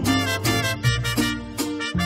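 Instrumental break in a Spanish-language Christian song: a Latin band plays a bass line under held chords and steady percussion, with no singing.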